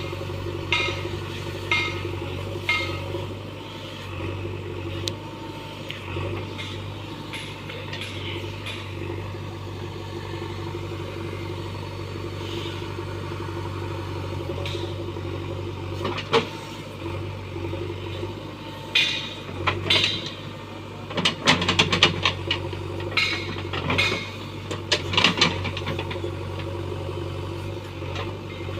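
JCB backhoe loader's diesel engine running steadily, with bursts of sharp metal clanks near the start and again through the second half.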